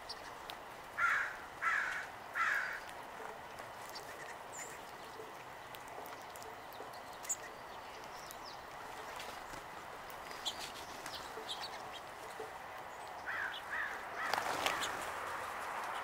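Songbirds at a seed-covered picnic table: three loud short calls about a second in over scattered faint chirps. Near the end come two more calls, then a brief rush of wings as the flock of sparrows and house finches takes off.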